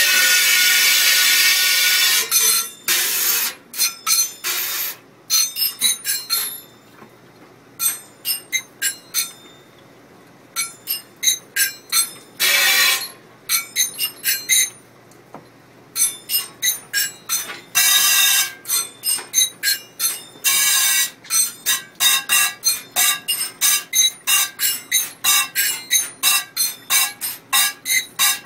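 A ring of metal measuring cups rattled and struck against a stainless-steel sink as percussion: quick, rhythmic metallic clicks and clanks, sparse for a few seconds in the middle, then dense and steady at about three hits a second through the second half. A few short bursts of spraying water hiss over it.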